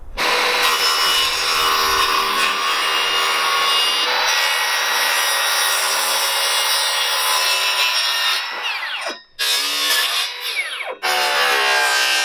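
Circular saw ripping lengthwise through an OSB spline, trimming it down so the panels seat. The cut runs steadily, stops about nine seconds in, and starts again, with another brief break near eleven seconds.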